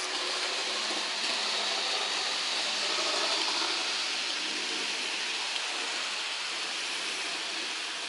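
Steady rushing hiss of model trains running on the layout, their wheels rolling on the track, with a faint low hum underneath; it swells a little a few seconds in.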